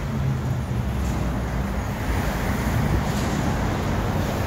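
Road traffic going by: a steady rumble of passing cars.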